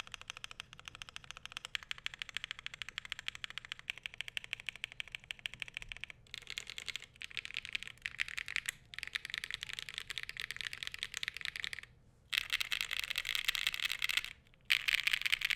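Fast typing on a Glacier80 custom mechanical keyboard with SOTC switches and thick foam inside: a dense, even patter of key presses, broken by a few short pauses and getting louder and denser in the last few seconds.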